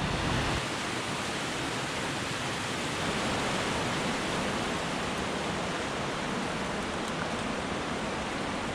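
Steady rush of flowing water from a mountain river running over rocks.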